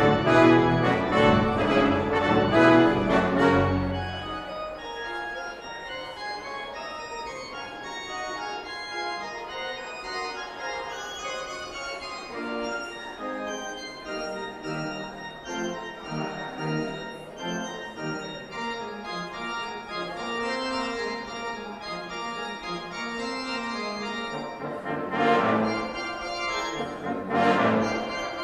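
Live classical music for brass quintet, timpani and organ: a loud full-ensemble passage for the first few seconds gives way to a quieter stretch led by organ chords, and the ensemble swells back in near the end.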